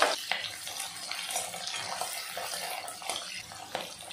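Chopped red onions sizzling in hot oil with fennel seeds in an iron kadai: a steady frying hiss with a couple of sharp clicks near the start.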